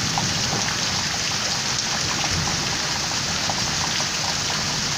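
Heavy rain falling steadily in a downpour, with scattered drops splashing close by.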